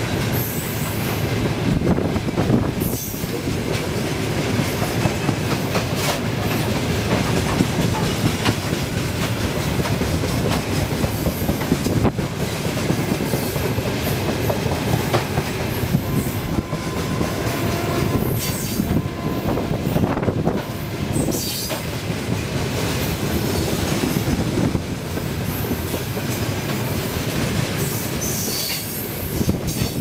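Freight train of open gondola wagons rolling past close by: a steady rumble of steel wheels on the rails, with repeated clacks as the wheels cross rail joints and now and then a high wheel squeal.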